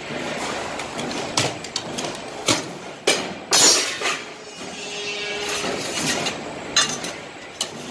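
Metal clanks and knocks as a steel tube is handled at a tube-bending machine: several sharp knocks, the loudest about three and a half seconds in, over steady factory background noise.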